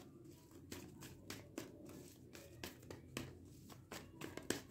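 Tarot cards being shuffled by hand: a quiet, irregular run of soft clicks and taps.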